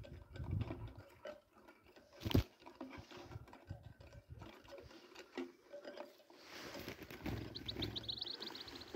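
Handling noise from a phone held in one hand while the other grips small birds: scattered rustling and low rumbles, with one sharp knock about two and a half seconds in. Near the end a hiss of movement comes with a brief run of rapid high ticks.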